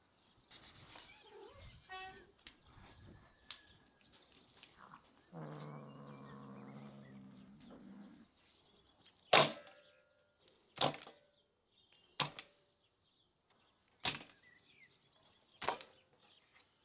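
A cat growls low and drawn-out for about three seconds. Then come five sharp knocks, about one and a half seconds apart, each with a short metallic ring, as of something set down against a metal bowl.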